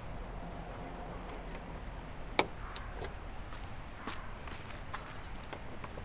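A few sharp clicks and knocks from hands working the hard shell of an iKamper SkyCamp 3.0 mini rooftop tent, the loudest about two and a half seconds in.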